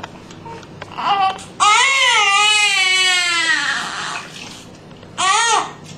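Newborn baby crying: a short wail, then one long wail of about two seconds, then another short wail near the end.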